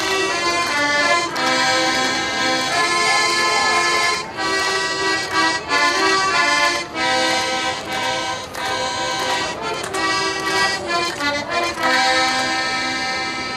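Accordion playing a folk tune, its held notes changing in short steps throughout.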